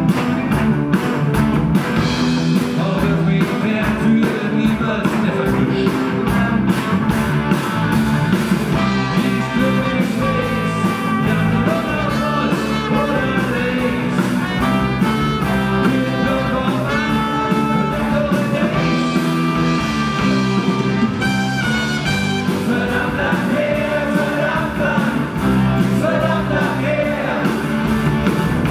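Live rock band with electric and acoustic guitars, bass, keyboard and drums playing to a steady beat, with a trumpet playing a melodic solo line over the band through the middle of the passage.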